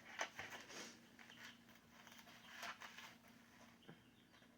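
Faint, soft rustles and small crackles of hands working tomato seedlings loose from potting soil, over a low steady hum.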